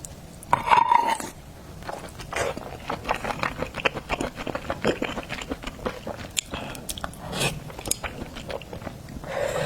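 Close-up eating sounds of seafood: wet chewing, smacking and mouth clicks in an irregular run, with a louder burst about half a second in.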